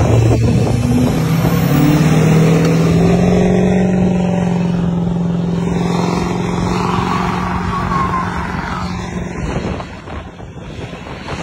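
Pickup truck engine revving up and holding at high revs under heavy load as it tows a semi truck stuck in snow on a tow strap, easing off near the end.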